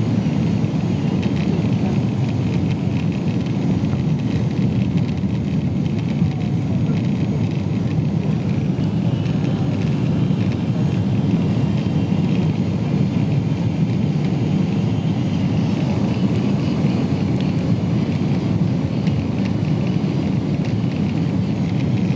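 Steady low rumble of a Boeing 777-200 in flight on its approach to landing: engine and airflow noise with a fainter hiss above it, unchanging throughout.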